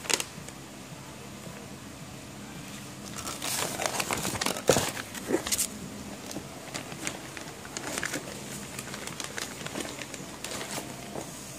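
Clear plastic bags crinkling and cardboard rustling as parts are handled and lifted out of a shipping box, in irregular bursts that are busiest around the middle, with one sharp knock partway through.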